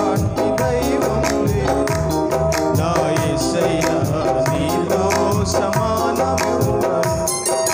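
Electronic keyboard playing the instrumental part of a Telugu Christian devotional song over a quick, steady percussion beat.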